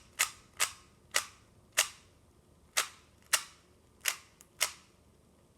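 Rubik's cube being turned by hand, a sharp click each time a layer snaps round: eight clicks at uneven spacing, stopping a little before the end.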